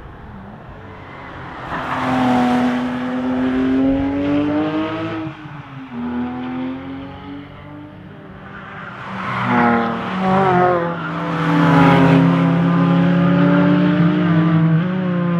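Porsche 997 GT3 RS 4.0's naturally aspirated flat-six accelerating hard in two loud runs, revs climbing. The first swells about two seconds in and fades a few seconds later; the second, louder one starts about ten seconds in, with a quick upshift, and stays loud to the end.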